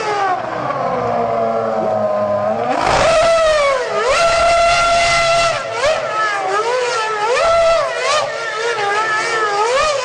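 Formula 1 car's V10 engine: its pitch falls steadily as the car slows, then about three seconds in it revs up sharply and keeps flaring up and down in quick rev blips, once held high, as the car spins its rear wheels in a cloud of tyre smoke doing donuts.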